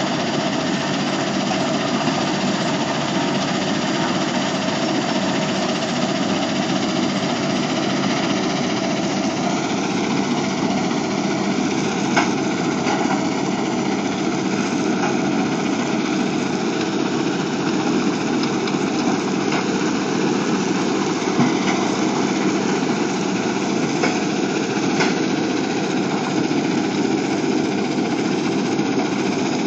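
Portable crushing and screening plant running at a recycle yard: a steady diesel drone and machinery rumble, with crushed rubble pouring off a stacker conveyor. A few sharp knocks stand out, about twelve, twenty-one and twenty-five seconds in.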